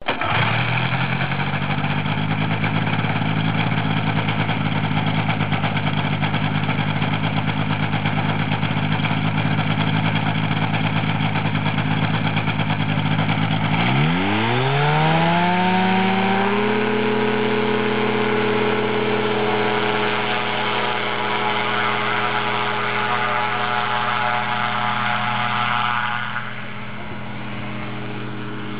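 Six Chuter SR7 powered parachute's engine and pusher propeller idling steadily, then throttled up about halfway through in a rising whine to a steady full-power run for the takeoff. It gets a little fainter near the end as the craft climbs away.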